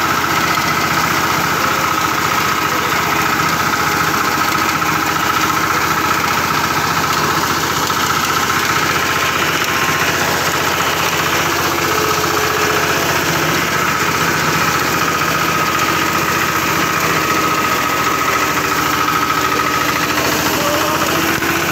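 Walk-behind petrol-engine reaper running steadily at constant speed while its cutter bar mows through standing wheat, with a steady high tone that fades near the end.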